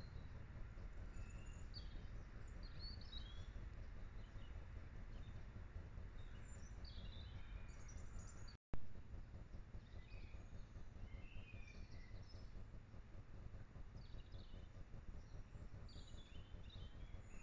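Faint outdoor ambience: steady low background noise with scattered short, high bird chirps throughout. About halfway through the sound cuts out briefly, and one sharp click, the loudest sound, marks the start of the next trail-camera clip.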